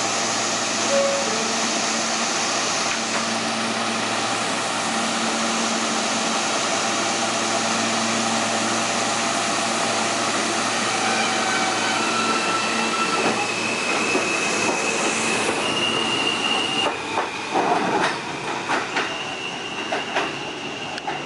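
R160 subway train pulling out of an underground station and accelerating away, with a steady loud running noise. About halfway through, high motor tones come in, stepping up in pitch, along with a steady high wheel squeal. In the last few seconds the wheels clack over rail joints as the cars roll past.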